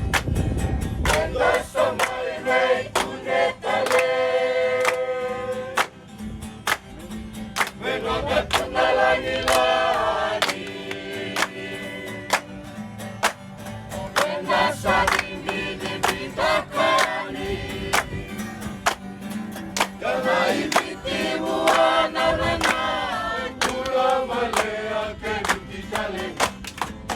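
Music: a choir of voices singing over a steady beat of sharp strokes.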